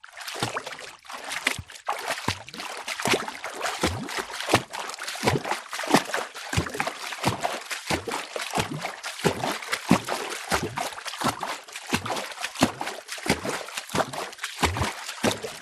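Footsteps wading through shallow water, each step a splash and slosh over running water noise. The steps come at a steady walking pace of about three every two seconds, and the sound stops abruptly at the very end.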